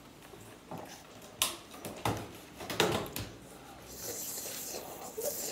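People eating instant ramen noodles: a few sharp knocks and clicks in the first half, then noodles slurped with a steady hiss from about four seconds in.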